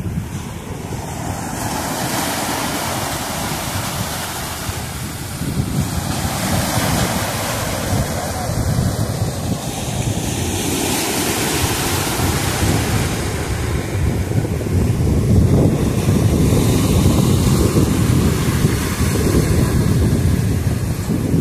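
Rough sea surf breaking and washing over the shore, swelling every few seconds as each wave comes in, with strong wind buffeting the microphone.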